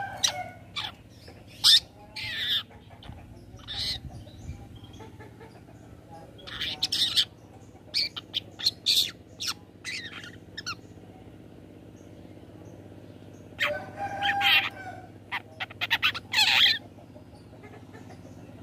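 Long-tailed shrike (cendet) calling in three clusters of short, sharp notes, with quieter pauses between the clusters.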